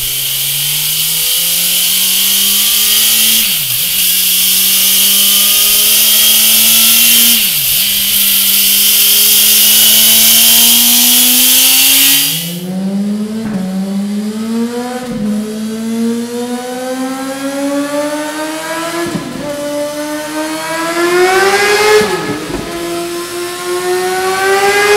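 2017 Suzuki GSX-R1000 inline-four revving hard on a test bench, accelerating up through the gears on its stock exhaust. Its pitch climbs steadily, with two brief drops at upshifts, under a strong hiss. About halfway through, the sound cuts to the same bike fitted with a Mivv GP Pro exhaust, pulling up through the gears again with several quick upshifts.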